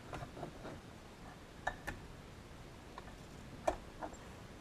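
A few light, scattered clicks and taps of hand tools against thin aluminium sheet as a rivet gun and bucking bar are being positioned. The loudest tap comes about three and a half seconds in. No rivet is driven.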